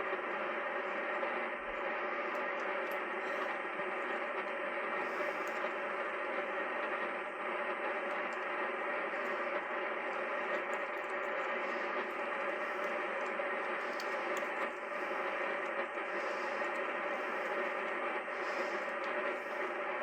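Steady hiss of static from a Yaesu FT-102 transceiver's speaker tuned to a quiet HF band, cut off below the low bass and above the upper voice range, with faint whistle tones in the hiss. A few faint small clicks sound over it.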